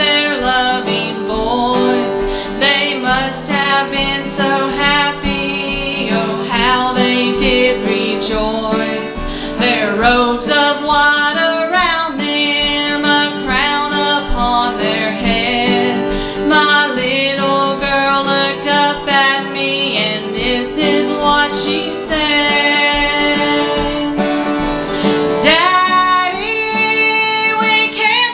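A woman singing a song to live acoustic guitar accompaniment.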